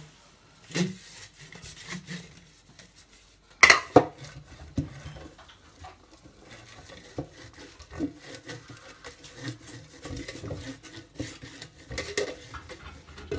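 A metal cake tin being handled and greased with butter by hand: soft rubbing inside the tin with scattered knocks and clatters of the tin against the counter, the loudest a pair of knocks about four seconds in.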